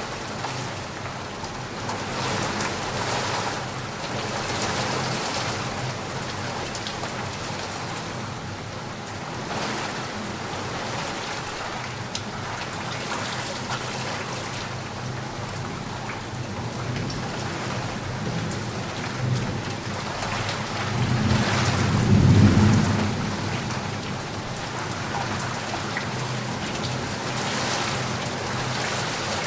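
Steady rain falling, with a low rumble of thunder that swells about two-thirds of the way through and fades a couple of seconds later.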